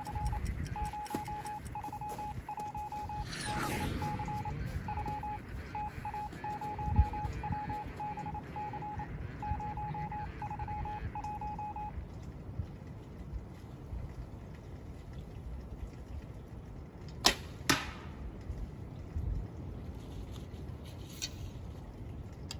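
A shot from a short Turkish horse bow: the release and the arrow's whoosh a few seconds in, with a sharp thump soon after. An on-off electronic beeping runs through the first half and stops, and two sharp clicks come near the end.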